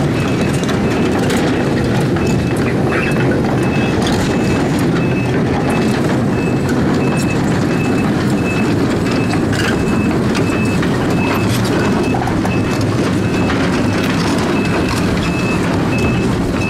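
Heavy diesel construction machinery running steadily, with a high-pitched warning alarm beeping about twice a second.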